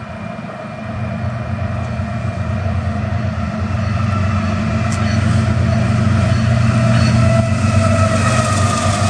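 Diesel-electric freight locomotives led by a GE ES44AC (Union Pacific C45ACCTE) approaching and passing, their engines running steadily and growing louder throughout, with the pitch dipping slightly as the lead unit goes by near the end.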